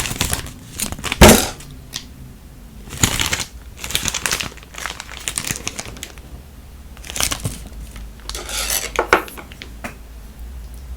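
Convenience-store meal packaging and utensils being handled: a series of short clatters and crinkles of plastic containers and cutlery, the loudest sharp clack about a second in.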